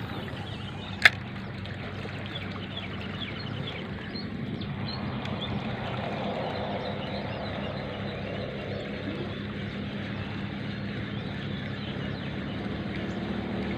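A steady low engine hum runs throughout, with one sharp click about a second in and faint high chirps over it.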